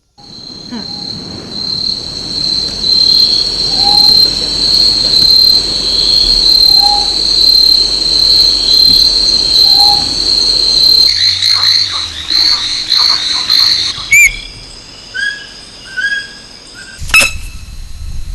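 Insect chorus: a steady, high-pitched buzz with a few short, lower calls over it. About eleven seconds in, the chorus thins to scattered chirps, and two sharp clicks come near the end.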